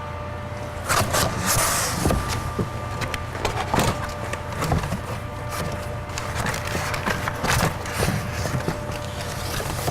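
A new car window regulator being unpacked and handled: irregular rustling, scraping and clattering of packaging and metal parts, starting about a second in, over a steady low background hum.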